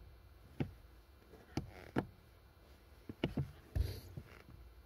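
Scattered faint clicks and knocks from a sneaker working a car's rubber-padded pedal: single sharp taps about half a second, a second and a half and two seconds in, then a quick run of knocks and low thuds a little past three seconds.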